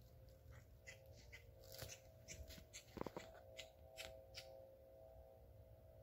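Faint, irregular crunching of footsteps in dry fallen leaves, with a louder crackle about three seconds in; the crunching dies away in the last second or so.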